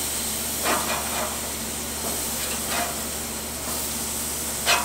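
Marinated fish fillets sizzling with a steady hiss on a lit gas grill while being flipped with a metal spatula, with three short louder sounds, about a second in, near three seconds and at the very end, as the fillets are turned.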